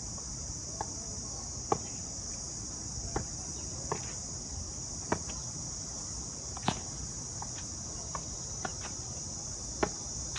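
A tennis ball tapped repeatedly on a racket's strings: a sharp pock every second or so, unevenly spaced. Behind the hits, a steady high insect drone.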